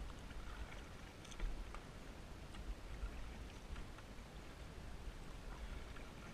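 Kayak paddle strokes: the blade dipping and dripping, with small irregular splashes and water trickling off, over a steady low rumble.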